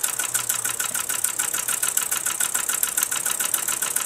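Mamod SP6 single-cylinder toy steam engine running steadily at a brisk speed, its exhaust chuffing in a rapid, even beat; it is running in and turning freely.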